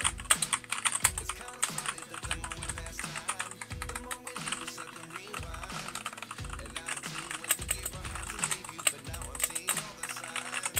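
Continuous fast typing on a Cox CK87 mechanical keyboard with yellow linear switches, a dense run of key clacks. The switches are stock and unlubricated. The owner finds the sound just what you'd expect from a keyboard at that price, and plans to fix it by lubing the switches and adding sound-dampening foam.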